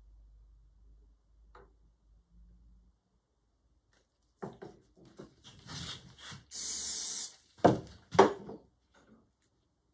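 A short, steady hiss of an aerosol CA-glue accelerator spray, lasting just under a second, after some handling noise. Two sharp knocks follow, the loudest sounds here.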